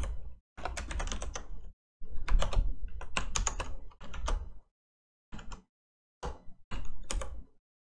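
Typing on a computer keyboard: several bursts of rapid key clicks with short pauses between them, the longest run lasting about two and a half seconds. Shorter clusters of key presses follow near the end.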